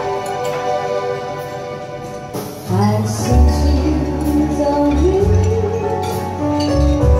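A woman singing into a microphone over an electronic keyboard accompaniment with a light percussion beat, all through a PA system. The keyboard plays alone at first, and the voice comes in about two and a half seconds in.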